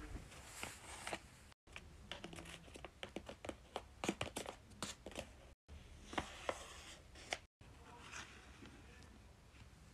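Faint paper crinkling and quick light taps as a homemade paper blind bag is handled and tapped with rolled-paper claw fingertips. The sound is broken by a few abrupt silent cuts.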